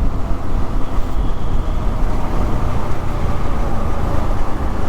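Motorcycle riding noise: steady wind rush buffeting the microphone over the engine and tyres.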